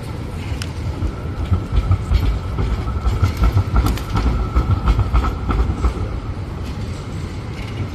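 B-class articulated tram rolling past, with a heavy low rumble and a series of sharp clacks as its wheels cross the rail junction. A steady high whine runs through the loudest stretch and fades as it moves away near the end.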